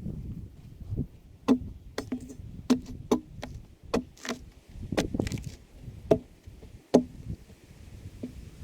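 A tool striking a log in about a dozen sharp knocks at uneven intervals, each with a short ring.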